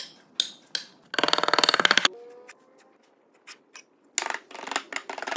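Sharp knocks, three in the first second, as wooden pegs are driven into a table's breadboard end joint. Then a rapid, even run of clicks lasts about a second, and more quick clicking bursts come near the end.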